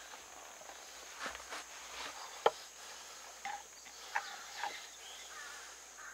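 A knife and a green stick being handled on a wooden board: a few soft knocks, then one sharp tap about two and a half seconds in, as the blade is set in place for batoning. A few faint chirps and a steady high-pitched tone sit in the background.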